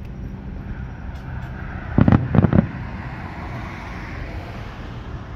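Fireworks shells bursting in the distance: a tight cluster of booms and bangs about two seconds in, over a steady low rumble of road traffic.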